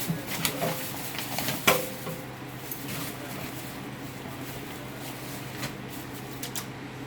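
Ice cubes clattering and knocking as more ice is piled onto live crabs in a container, with one sharp knock a little under two seconds in and scattered lighter clicks after.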